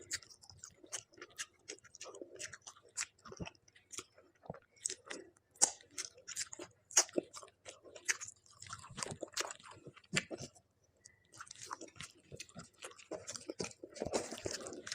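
A person chewing and biting food, with irregular short clicks and crunches and a brief pause near the end.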